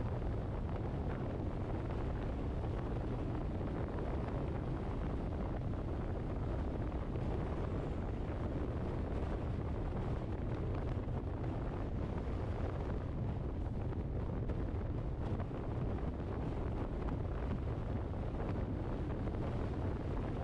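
Steady low rumble of a moving vehicle with wind buffeting the microphone, unchanging throughout.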